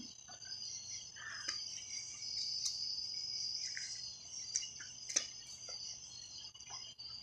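Night insects chirping in a steady, high chorus at two pitches, with a few scattered sharp clicks and pops.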